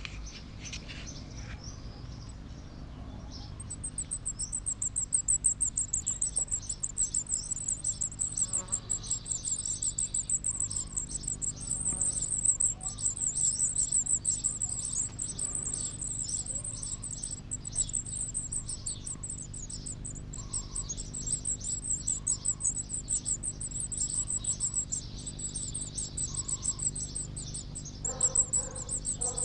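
Redstart nestlings begging: a rapid, continuous high-pitched chatter of calls that starts a few seconds in.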